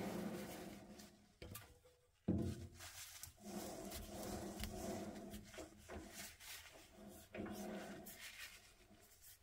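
Small metal lathe turning a stainless steel sleeve while emery paper is held against it to finish the surface: a soft rubbing over a wavering motor hum. The machine sound fades over the first two seconds, then picks up again with a sudden knock about two seconds in.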